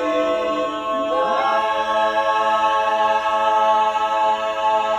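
Two barbershop quartets singing a cappella together, holding the final tag chord: the voices slide up into a new chord about a second in, then sustain it as one long ringing chord.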